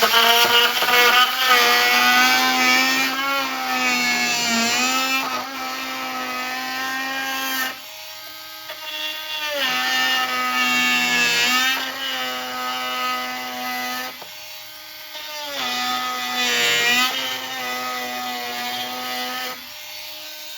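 Milwaukee M12 oscillating multi-tool running at speed 12 and cutting into wood: a high motor whine whose pitch wavers and sags as the blade bites. Twice it drops away briefly before picking up again.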